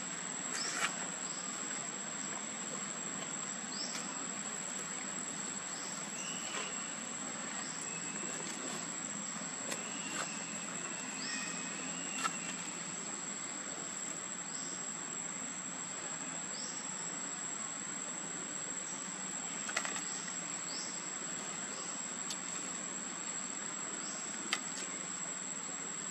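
Steady high-pitched insect drone over outdoor background noise, with faint short chirps and a few sharp clicks scattered through.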